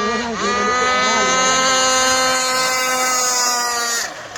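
A radio-controlled long-tail boat's two-cylinder two-stroke engine is blipped briefly, then held at high revs in one steady high note that sags slightly in pitch. The throttle is cut about four seconds in.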